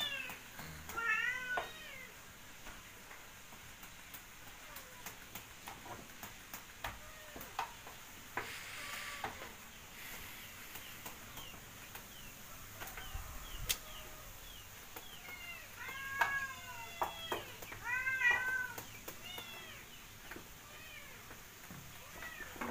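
A cat meowing in short, repeated mews: a cluster just after the start and another, louder, from about two-thirds of the way through. Between them, faint clicks and scraping of a scoop working cooked rice in a wooden tray.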